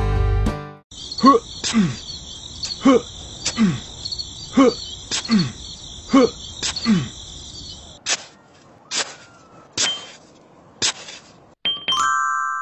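Added sound effects of a small hoe digging into sand: about nine sharp strikes, each with a short downward-sliding tone, over a steady chirring of crickets, then four sharper clicks about a second apart. A short bright chime sounds near the end.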